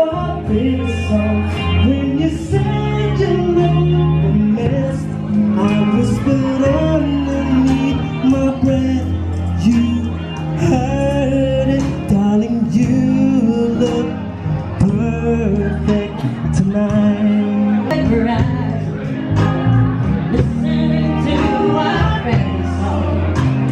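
A band's song: a singer over electric guitar, bass and keyboards, heard in a large hall.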